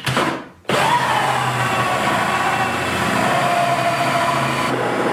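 Cordless drill driving a 3.5-inch hole saw through the plastic wall of a 5-gallon bucket. The motor starts just under a second in, runs steadily for about four seconds with its whine sagging slightly in pitch as the saw bites, then stops near the end.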